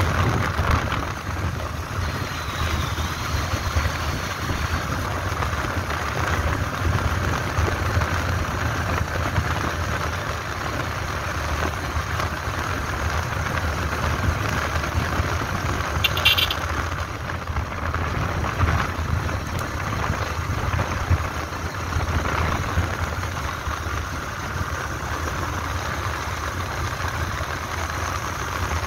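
A vehicle's engine running steadily while on the move, with wind rushing over the microphone. A short high chirp sounds about halfway through.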